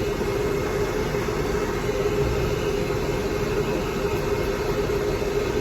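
Hair dryer running steadily: constant blowing noise with a steady hum from its motor.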